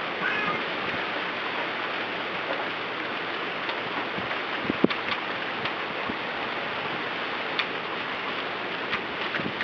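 Steady rushing noise of a wind storm, with a few scattered small ticks and taps.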